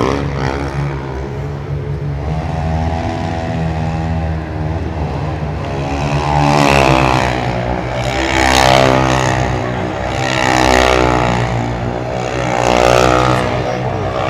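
Stunt motorcycles' engines revving hard over a steady engine drone, the pitch rising and falling in repeated swells about every two seconds through the second half.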